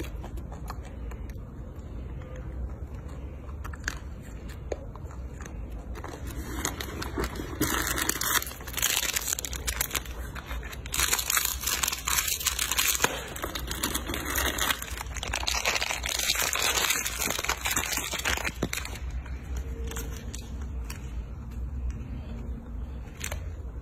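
Plastic bag crinkling in irregular bursts as a macaque grips and handles it, loudest through the middle stretch, with quieter handling noise before and after.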